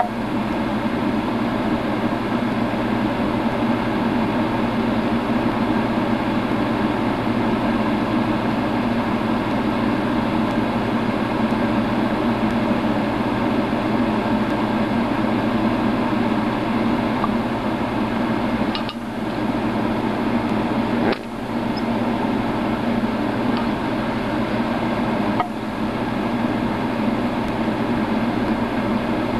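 A steady machine drone, running evenly with three brief dips in its last third.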